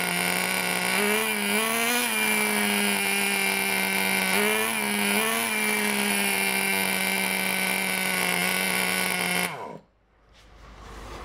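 RC monster truck's small two-stroke engine running at a high steady pitch, with a few short throttle blips early on and again around the middle, then cutting out suddenly about nine and a half seconds in.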